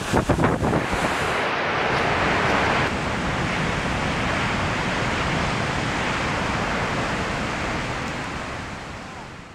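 Storm waves crashing against a rocky shore: wind buffets the microphone for about the first second, then a steady rush of heavy surf and spray that fades out near the end.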